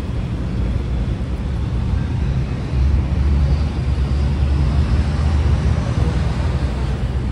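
Low, steady rumble of boat engines out on the river, swelling from about three seconds in for a couple of seconds.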